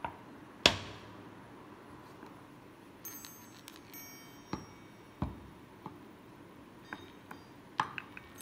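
Chiming Baoding balls (enamel health balls) being picked up and handled in their box: a sharp knock, then the chimes inside the balls ring with several high tones, followed by light knocks and clinks.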